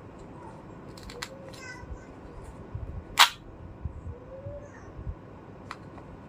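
Small plastic toy kitchen pieces being handled, giving a few light clicks and taps, with one sharp, much louder plastic click about three seconds in.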